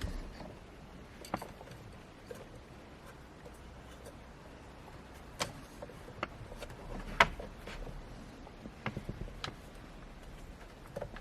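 Scattered light clicks and knocks from hand work on parts and tools during the gauge installation, with the sharpest knock about seven seconds in and a few quick ticks around nine seconds.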